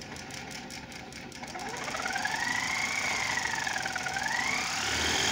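Battery-powered miniature Dongfeng diesel engine model running while its throttle lever is worked up and down. Its whine climbs and grows louder about a second and a half in, dips a little past the middle, then climbs higher near the end.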